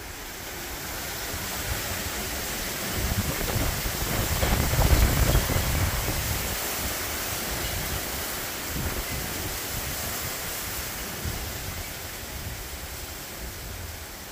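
Gusty hurricane-force wind rushing through palm fronds and trees, swelling to a peak about five seconds in and then slowly easing. Wind buffets the microphone with a low rumble.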